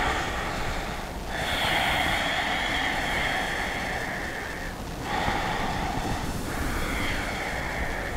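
A woman breathing slowly and deeply through the open mouth: one long breath of about three and a half seconds, then two shorter ones.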